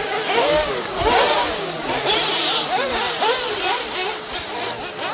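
Several nitro RC buggy engines revving, their high-pitched whine rising and falling again and again as the cars speed up and slow down.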